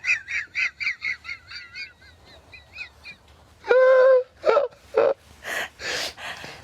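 A woman's wheezing laugh. It starts as a rapid run of high, squeaky wheezes, about five a second, that trails off. About four seconds in comes one loud goose-like honk, followed by gasping breaths.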